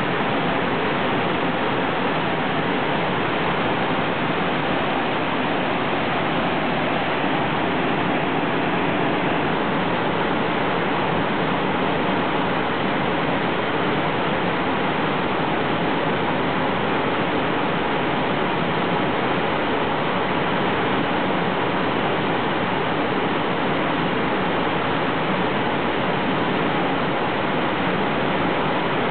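Steady rush of whitewater pouring down a steep creek's cascades and small waterfalls, an even, unbroken roar of falling water.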